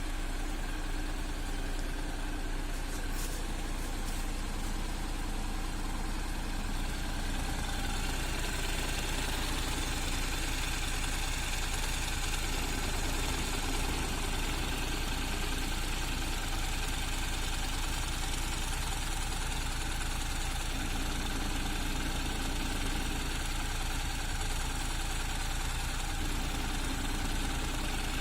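Honda NC750X parallel-twin engine idling steadily in neutral. About seven seconds in, an extra higher-pitched mechanical sound joins the idle and keeps going. This is the strange extra sound that the owner hears only when the clutch lever is released and that goes away with the lever pulled in.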